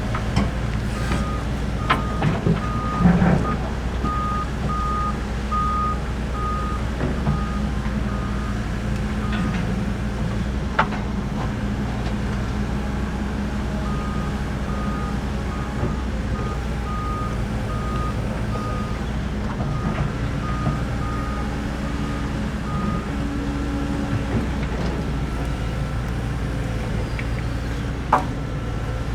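Doosan DX140LCR-5 short-radius excavator's diesel engine running steadily while its travel alarm beeps at an even pace in two spells of several seconds, the warning given while the tracks are moving. A few sharp knocks come through, the loudest about three seconds in.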